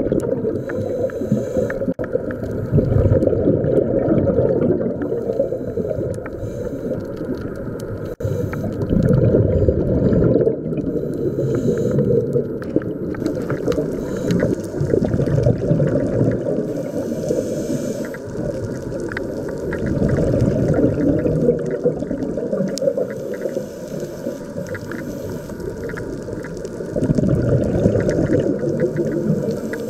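Underwater sound picked up by a diving camera: a scuba diver's exhaled bubbles gurgling in loud surges every five to seven seconds over a steady low rumble, with scattered faint clicks.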